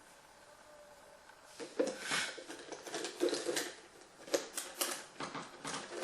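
Irregular clicking and rustling, as of something being handled, starting about a second and a half in.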